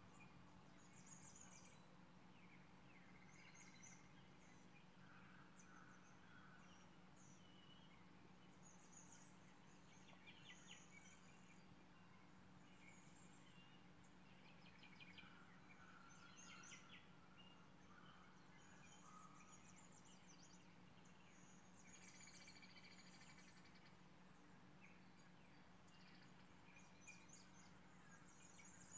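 Near silence: faint birds chirping and calling now and then over a low steady hum.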